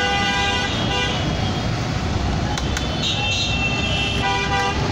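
Busy road traffic: a steady rumble of passing vehicles, with a horn honking in the first second and again near the end.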